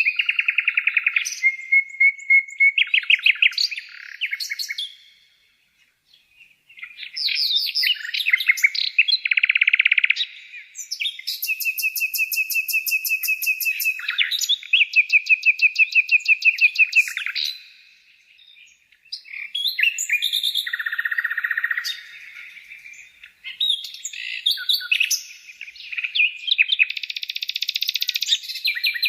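A songbird singing long, varied phrases of rapid trills and repeated chirping notes, with two short pauses, one about five seconds in and another past the middle.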